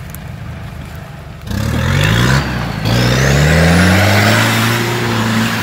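Off-road 4x4's engine revving hard under load, its pitch climbing in long rises with a thin high whine rising alongside. A low steady engine rumble comes first, and the loud revving starts suddenly about one and a half seconds in.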